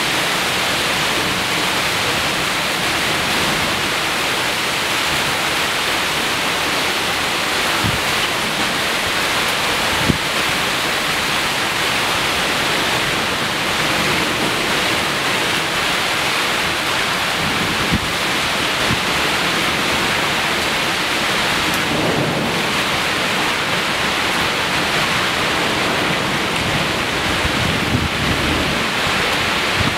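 Heavy rain pouring down steadily in a downpour, with a few sharp knocks, the loudest about ten seconds in.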